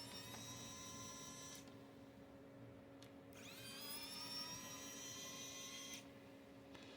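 Small electric screwdriver whining in two runs, each rising in pitch as it spins up and then holding steady, backing out laptop back-cover screws. A faint steady hum runs underneath.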